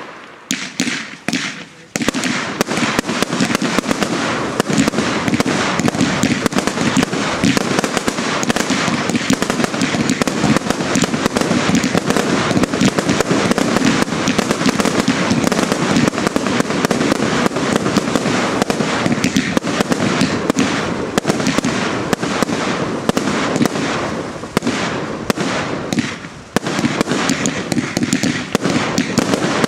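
Class 2 consumer New Year's fireworks, with aerial shells bursting over ground fountains. A few separate bangs give way, about two seconds in, to a dense, continuous rapid-fire of small bursts and crackle, with a brief dip near the end.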